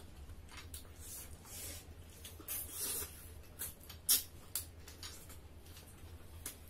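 People eating with their hands: wet chewing and lip-smacking in short, sharp clicks, the loudest smack about four seconds in.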